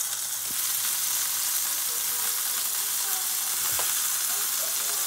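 Venison burger patty sizzling steadily in hot grease in a frying pan covered with aluminium foil.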